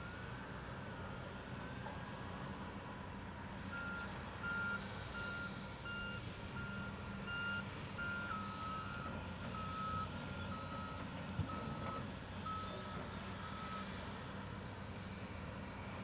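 Backup alarm on heavy construction equipment beeping at about three beeps every two seconds, its pitch stepping slightly lower about halfway through, over the steady running of a Caterpillar 966E wheel loader's diesel engine. The beeping starts about four seconds in and stops a couple of seconds before the end.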